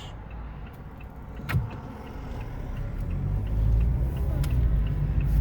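Car running on the road heard from inside the cabin, a low rumble that grows louder about halfway through, with a single sharp click about a second and a half in.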